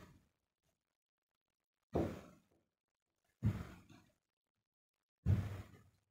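A man sighing three times: short breaths out about two, three and a half and five and a quarter seconds in, each fading away within half a second.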